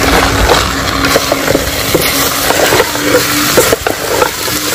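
Wooden spoon stirring diced cassava and vegetables in a metal pan over a wood fire: a frying hiss with repeated scrapes and knocks of the chunks and spoon against the pan. A steady low hum runs underneath.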